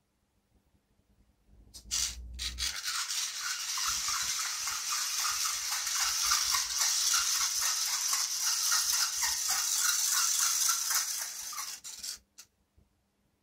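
Shru robotic cat toy's small motor running as the toy rolls about, a whirring rattle that starts about two seconds in and stops abruptly near the end.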